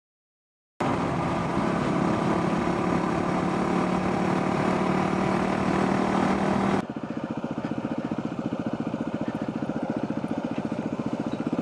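Yamaha motorcycle engine running while riding, starting after a brief silence with a steady hum under a hiss of rushing air. About seven seconds in the sound cuts abruptly to a lower, evenly pulsing engine note with less hiss.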